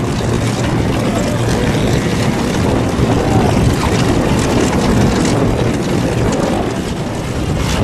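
P-51D Mustang's Packard Merlin V-12 engine running steadily, a loud even rumble from its exhaust stacks.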